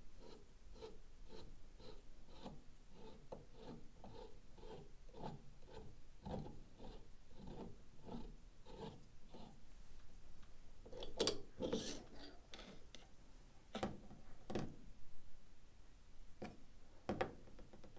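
Two-jaw gear puller's threaded screw turned by hand, faint rubbing with small ticks about two a second, as it presses the outer magnet rotor off the stator of a Makita DUC356 brushless motor. A few louder knocks and clicks in the second half as the rotor and stator come apart and are handled.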